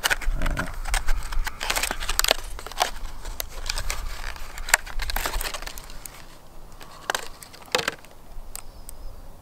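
Stiff plastic blister pack of a fishing jig being pried open and handled, crackling with irregular sharp clicks and snaps. The crackling is busiest in the first six seconds and thins to a few separate clicks near the end.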